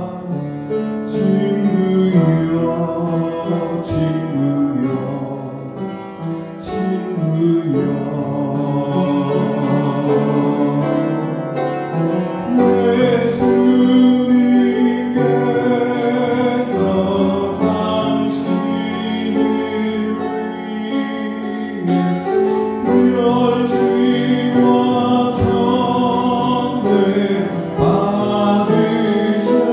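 A man singing a Korean worship song, accompanying himself on an upright piano.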